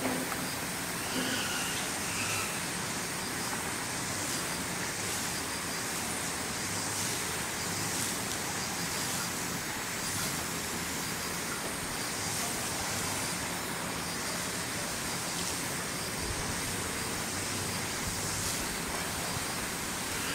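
Steady outdoor background noise: a constant hiss with a high buzz that swells faintly about once a second.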